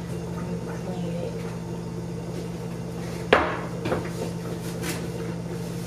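A sharp knock of something hard set down or bumped on a kitchen counter about three seconds in, followed by a couple of lighter clicks, over a steady low appliance hum.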